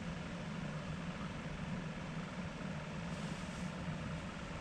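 Steady low mechanical hum of a running engine or motor, even throughout with no rise or fall.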